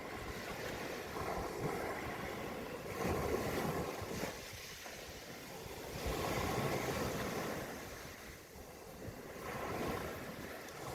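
Ocean waves washing onto a beach, swelling and easing about three times.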